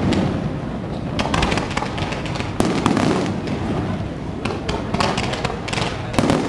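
Fireworks display: repeated bangs of bursting shells, about every second or two, with fainter crackling between them.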